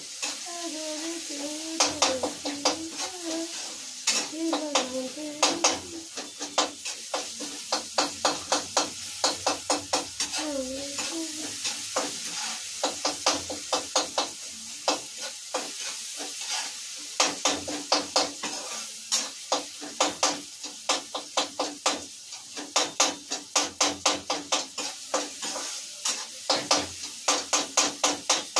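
A metal spoon stirring and scraping Maggi noodles in a steel pan on a gas stove: quick clinks against the pan, several a second, coming in bursts, over the sizzle of the food frying.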